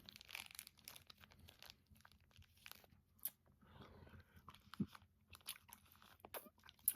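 Faint, scattered crunching and light clicks from a bagged salad kit's lettuce and toppings.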